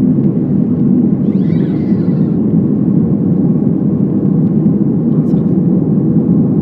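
Steady rumble of engine and airflow noise inside an airliner's cabin in flight, with no rises or breaks.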